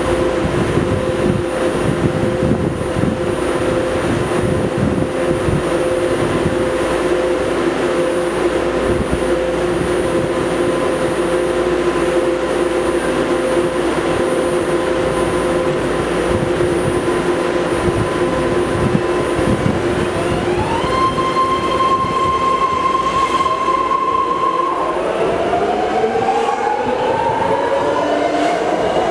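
BART train standing at the platform with a steady electrical hum, then a higher tone steps in and holds for a few seconds. Its propulsion then whines upward in several rising tones as the train starts to pull away.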